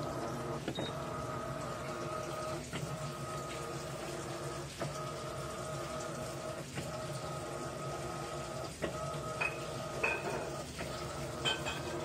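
Electrolux LAI17 17 kg top-load washing machine agitating a load of towels: a steady motor hum with a regular stroke about every two seconds as the agitator works back and forth. A few short beeps from the control panel near the end.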